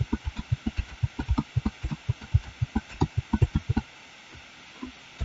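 Rapid, irregular clicking and tapping from a computer mouse and keyboard in use, about four or five taps a second, stopping about four seconds in.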